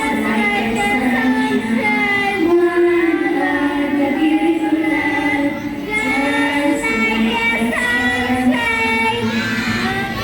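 A group of children singing a song together in unison, with long held notes. The singing stops at the very end.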